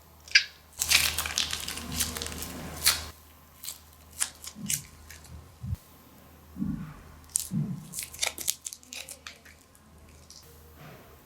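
Crunchy slime being worked by hand: a dense stretch of crackling and crunching about a second in, then scattered crisp clicks and soft squelching pops.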